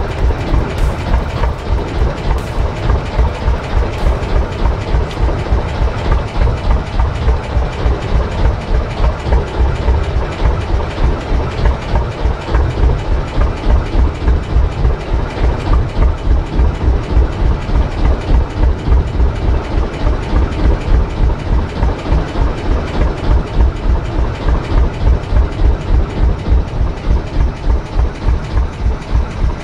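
Local fishing boat's engine running steadily at trolling pace, a fast, even low beat, over a steady hiss.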